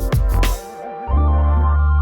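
Electronic background music: a few beats, a short drop, then about a second in a deep bass note comes in under held organ-like synth chords.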